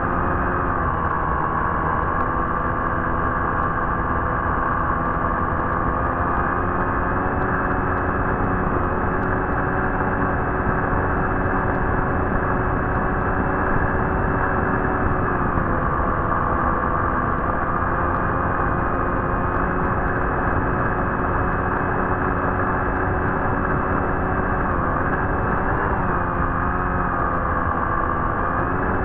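A steady motor drone: several pitched tones over a constant rushing noise, with the pitch dipping and rising slightly a few times as the throttle changes.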